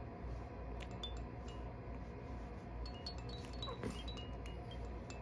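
Light, high tinkling chime notes, scattered and irregular and thicker in the second half, over a low steady hum. A brief falling squeak from the baby comes about three-quarters of the way through.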